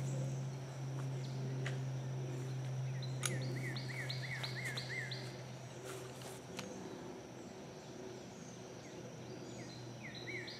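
Woodland ambience: steady insect buzzing under a low hum, with a bird giving a quick run of repeated down-slurred chirps about three seconds in and again near the end. A few faint clicks.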